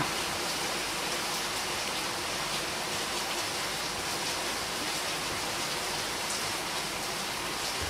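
Steady, even hiss with no distinct clatter or knocks.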